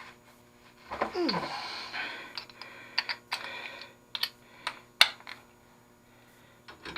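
Irregular sharp metallic clicks and clinks of hand tools and mower parts being handled, the loudest about five seconds in. They follow a short squeak that falls in pitch about a second in.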